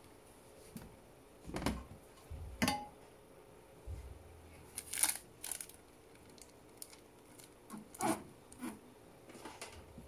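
Scattered light clicks and knocks with a few soft low thumps: a glass dish being handled and set down on the towels in a top-load washer's drum.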